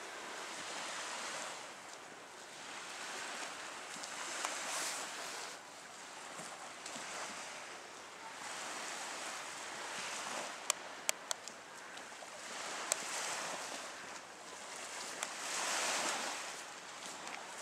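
Small waves washing onto a sandy beach, swelling and fading every two to three seconds. A few sharp clicks come in the middle.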